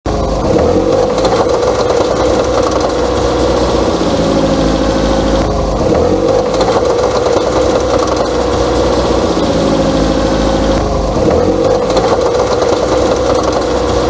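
Car engine pulling at low speed, dipping and picking up again twice, with a repeated clack-clack from the front wheel as it turns. The clacking is the sign of a worn outer CV joint, which the mechanic sets apart from a worn wheel bearing.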